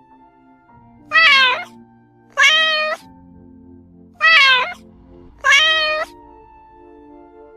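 A domestic cat meowing four times, each meow about half a second long, over soft background music.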